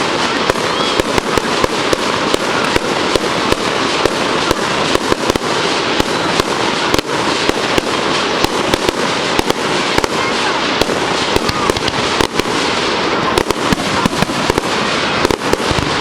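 Fireworks going off: a dense, continuous run of rapid bangs and crackles.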